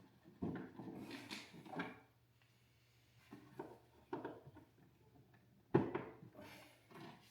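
Knocks, clicks and scrapes of hard plastic parts being handled as caster wheels are worked into a dehumidifier's base, with one sharp knock about six seconds in.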